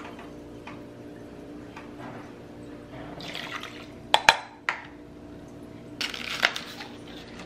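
Water poured from a measuring cup into a slow-cooker crock of rice and coconut milk, followed by a few sharp clinks of the cup against the crock. Near the end comes a short dry crackling of an onion being handled.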